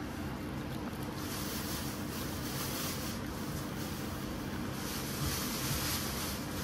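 Thick blended coconut and water pouring from a blender jug onto a wire-mesh strainer, a continuous splashing pour that swells and eases, over a faint steady low hum.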